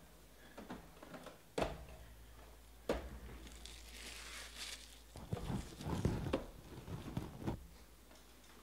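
Foil-wrapped trading card packs and boxes being handled: wrapper crinkling and rustling, with sharp taps about one and a half and three seconds in and a run of knocks and rustles in the second half.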